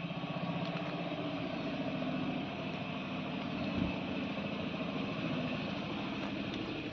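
An engine idling steadily, with a fast even pulse; one brief thump about four seconds in.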